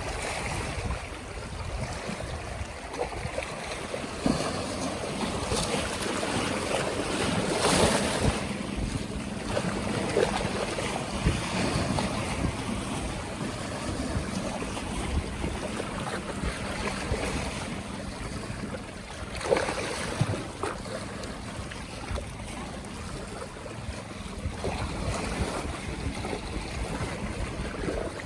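Waves on the Öresund washing and splashing, with wind buffeting the microphone; a couple of louder splashes stand out, about eight and twenty seconds in.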